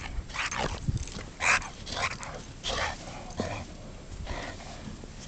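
A dog making a series of short, irregular breathy noises.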